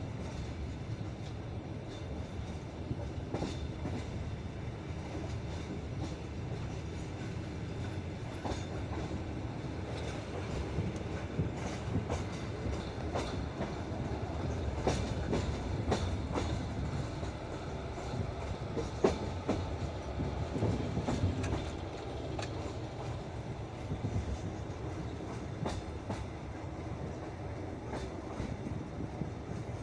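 Passenger train carriage wheels rumbling and clacking unevenly over the track as the train rolls out of the station. The clacks come thicker through the middle, with one sharp loud clack about two-thirds of the way in.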